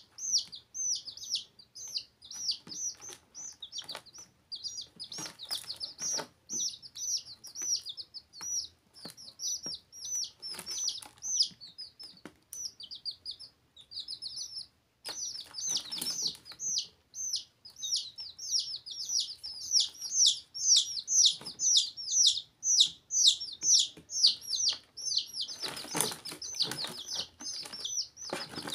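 Domestic chicks peeping without pause: rapid, high-pitched, down-slurred cheeps, several a second, breaking off briefly about halfway through. Occasional light taps sound underneath.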